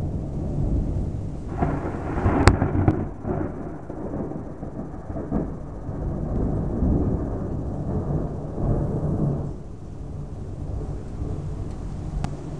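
Thunder rumbling, building to a sharp crack about two and a half seconds in, then rolling on for several seconds and dying down near the end.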